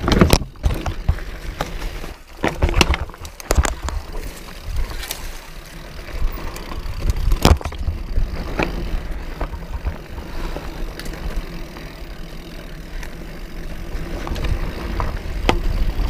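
Specialized Rhyme plus-tyre full-suspension mountain bike riding down rocky dirt singletrack: steady tyre rumble and wind buffeting the handlebar camera's microphone, broken by repeated sharp clacks and rattles as the bike hits rocks, the loudest about halfway through.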